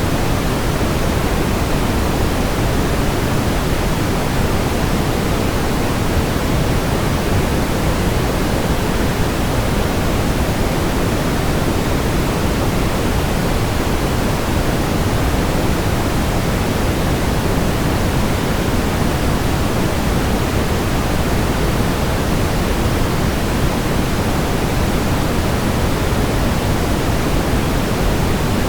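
Steady brown noise: an even, deep rushing hiss, strongest in the low end and falling off toward the highs, with no changes or interruptions.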